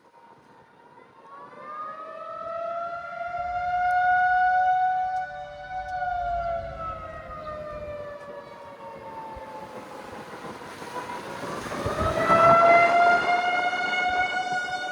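Federal Signal outdoor tornado warning siren sounding, heard from a moving car. Its pitch glides up and down and its loudness swells twice, about four seconds in and again near twelve seconds, as the siren turns and the car passes.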